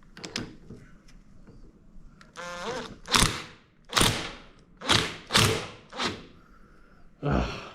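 About six dull knocks, roughly one a second, from metal tools working on a drill press's seized spindle pulley.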